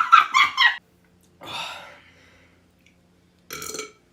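A person belching after chugging a drink: a loud, choppy burp in the first second, then two shorter, fainter sounds.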